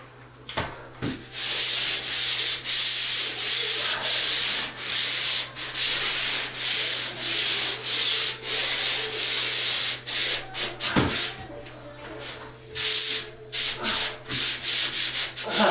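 Swivel-head pole sander rasping back and forth across a skim-coated drywall ceiling in quick strokes, about two a second. The strokes break off for a second or two and then resume as a few shorter strokes.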